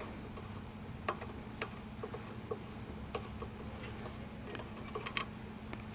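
Faint, irregular small ticks and clicks as the bowl nut on the bottom of a 3.5 hp Tecumseh engine's carburetor is unscrewed by hand and fuel drains from the bowl, over a low steady hum.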